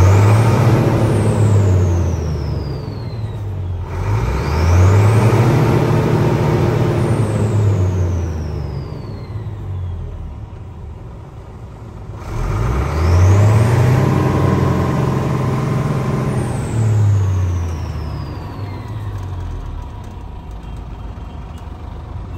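Isuzu Giga's 6SD1 inline-six diesel engine revved three times with the truck standing still. Each time the engine note climbs and sinks back toward idle, with a high whistle rising as it speeds up and sliding down as it drops off.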